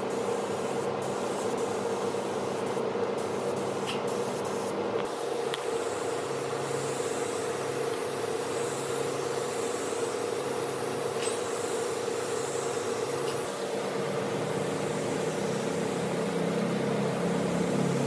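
A machine running steadily: an even hiss over a constant hum, growing a little louder near the end.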